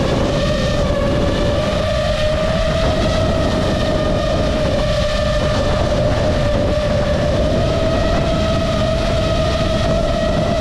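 Five-inch FPV quadcopter's brushless motors and propellers whining steadily, the pitch creeping slowly upward, over heavy wind buffeting on the onboard camera's microphone.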